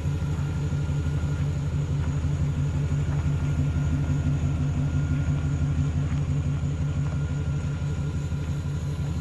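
OBS-body Chevy pickup engine idling steadily: a low, even exhaust rumble with a regular pulse.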